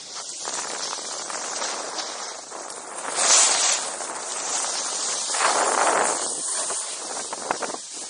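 Snowboard sliding and carving over packed snow: a continuous scraping hiss that swells with the turns, loudest about three seconds in and again around five to six seconds in.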